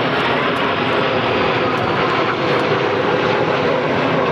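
Formation of Kawasaki T-4 jet trainers passing overhead, their twin turbofan engines making a loud, steady jet rush.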